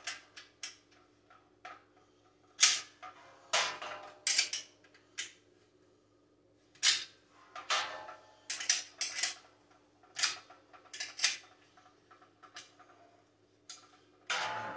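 Wrench and bolts clinking against the metal parts of an outdoor gas heater as the bolts are tightened: irregular sharp metallic clicks and clanks with quiet gaps between them.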